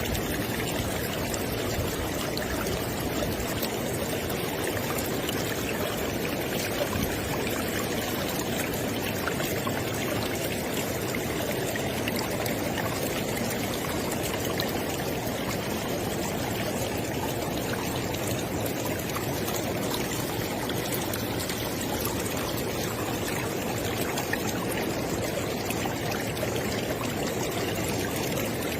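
River water flowing, a steady even rush that holds the same level throughout.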